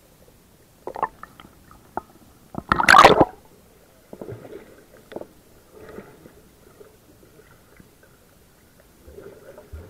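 Muffled underwater water noise, heard through a submerged camera. Scattered knocks and bumps run through it, with one loud rushing burst about three seconds in and softer sloshing after.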